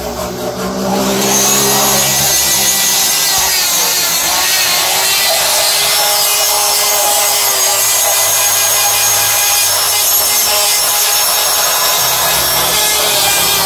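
Straight die grinder running steadily with its bit grinding inside a motorcycle carburetor's throat, porting the bore to open it up and smooth it. The grinding comes up loud about a second in and then holds steady.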